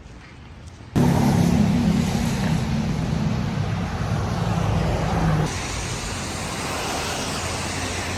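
Steady vehicle noise that starts abruptly about a second in: a low engine hum over rushing road noise. The hum drops away at about five and a half seconds, and the rushing noise carries on.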